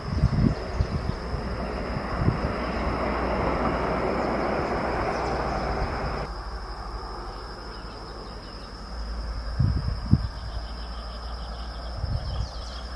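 Outdoor ambience: a steady rushing noise that stops suddenly about six seconds in, gusts of wind buffeting the microphone, and a constant high insect drone, with cricket chirps near the end.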